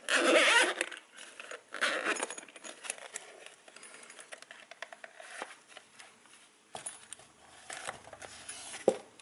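Zipper on a semi-rigid goggle case being pulled open in two quick runs, the pull tab clinking, then the case opened and the FPV goggles handled, with light rustling and a sharp click near the end.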